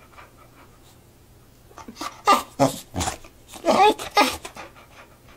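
Boxer dog 'talking': a run of about six short, pitch-bending moaning vocal sounds starting about two seconds in, the dog's way of 'saying I love you' on request.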